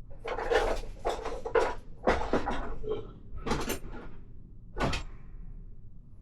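A run of short clattering knocks and scrapes, about seven in all, from hands and a screwdriver working on plastic motorcycle fairing parts.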